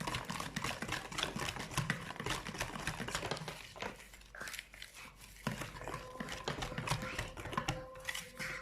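Cake batter being stirred by hand as flour is mixed in: a utensil clicks and taps rapidly and irregularly against the mixing bowl, easing off briefly in the middle.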